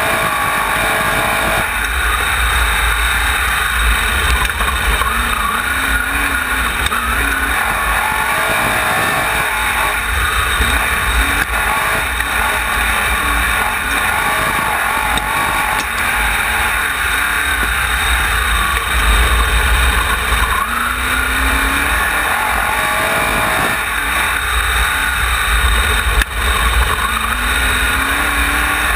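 Wingless sprint car engine heard from on board at racing speed, its pitch rising and falling every few seconds as the throttle goes on and off through the turns. Heavy wind rumble on the camera microphone.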